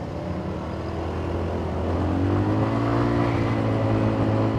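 150cc scooter engine idling low, then revving up about two seconds in as it pulls away, its pitch rising and levelling off. The pull-off is "starting up really weird", which the rider suspects is something wrong with the clutch.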